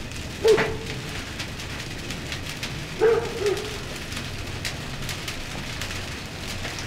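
Small fires of dry brush crackling on a floor, lit to smoke hanging pork: a steady hiss with many small sharp pops. Two short low calls break in, about half a second and three seconds in.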